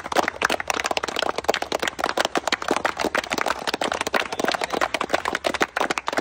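A group of people clapping their hands in steady, dense applause, many overlapping claps a second.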